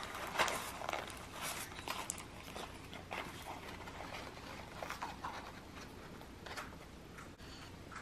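Parrots picking and chewing at paper and cardboard foraging toys: irregular small rustles, crinkles and scratches, with a louder crackle about half a second in.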